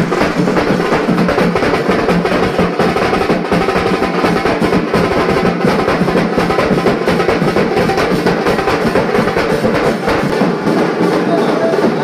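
Music with dense, rapid drumming, like a drum roll, over a few held low notes.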